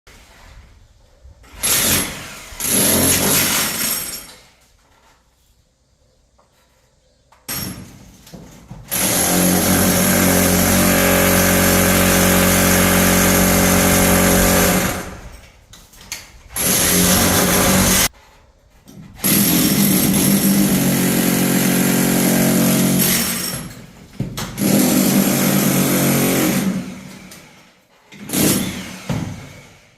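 An electric power tool is breaking through a masonry wall. It runs in repeated bursts: several short ones and one long run of about six seconds, with brief pauses between them.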